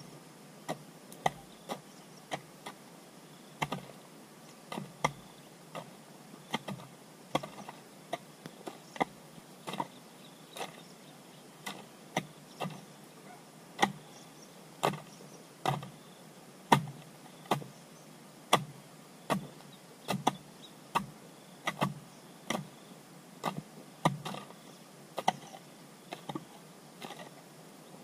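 Rhythmic sharp strikes of a hand tool, roughly one a second, some louder than others.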